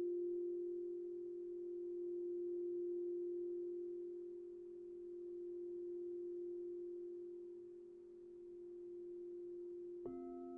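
Crystal singing bowl ringing with one long, pure tone that swells and ebbs slowly as it fades. About ten seconds in, a second crystal bowl is struck with a mallet and rings in, adding a lower note with higher overtones.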